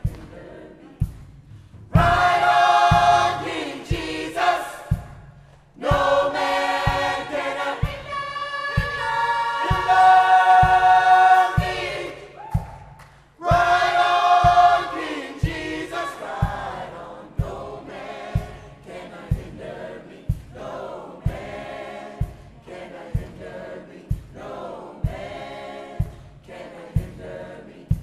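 Gospel choir singing in long phrases over a low thump that keeps the beat about once a second. The voices are loudest around the middle and fall back to softer singing for the last third.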